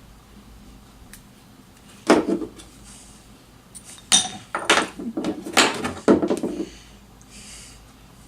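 Clattering knocks of small hard objects being handled and set down on a workbench: one about two seconds in, then a quick run of several between about four and seven seconds.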